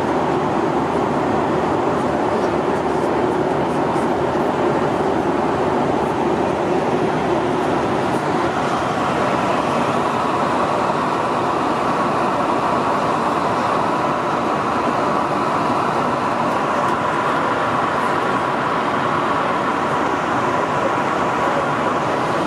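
Steady in-flight cabin noise of a Boeing 737-800 with CFM56-7B engines: airflow and engine hum. A low hum fades about a third of the way in, and a higher tone comes in after it.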